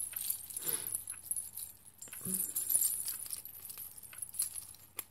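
Resin pendant charms on metal rings, with small beads and little bells, clinking and jingling in the hands as a bunch of them is picked up. The sound is a scatter of light metallic clicks.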